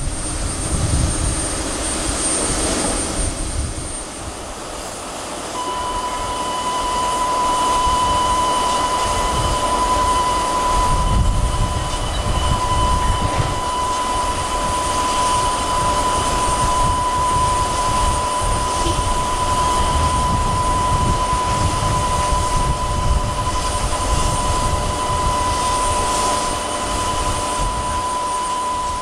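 Steady high whine of a parked Boeing 767-300ER jetliner at the gate, setting in abruptly a few seconds in and holding on, over a low, uneven rumble.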